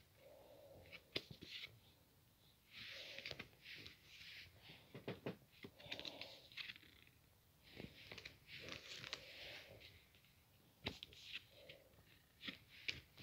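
Faint rustling of packaging in repeated short spells, with light clicks and taps of small items being handled.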